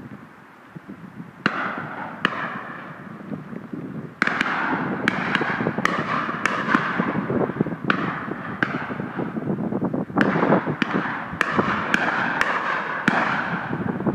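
Shotguns firing again and again from several guns on a driven game shoot, each report echoing away. Two shots come first, then the firing thickens about four seconds in into a steady, overlapping volley.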